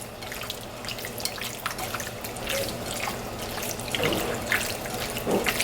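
Faint wet dripping and splashing sounds, a scatter of small irregular ticks over a light hiss, as liquid is handled in a kitchen.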